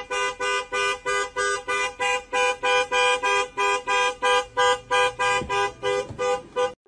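Car horn honking over and over in a fast, even rhythm, about four short honks a second, each sounding two pitches at once.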